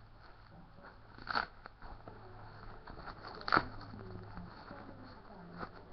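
Handling noise from a disposable nappy's tabs being fastened: rustling and crinkling with three sharp crackles, the loudest about three and a half seconds in.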